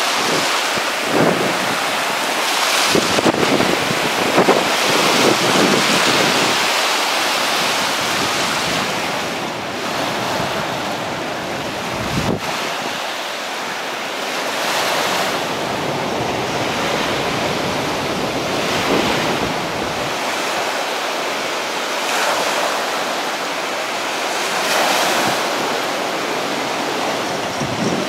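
Hurricane-force wind buffeting the microphone in surges, over the steady wash of storm surf on the shore.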